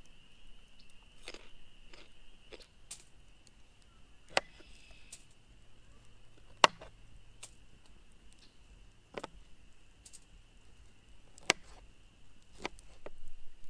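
Knife cutting broccoli on a plastic cutting board: about a dozen sharp, irregular taps of the blade striking the board, with a faint steady high-pitched tone underneath.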